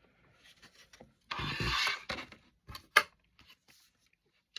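Items being handled during unboxing: a short scraping rub a little over a second in, then small clicks and one sharp click about three seconds in.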